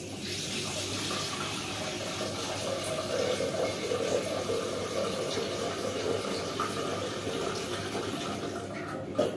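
Water from a kitchen tap running into a metal pot, a steady splashing stream that stops suddenly near the end.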